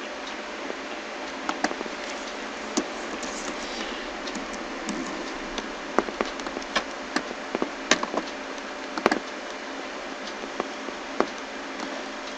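Scattered clicks of a computer mouse and keyboard, a string of short, separate taps, most of them bunched together past the middle, over a steady hiss of microphone noise.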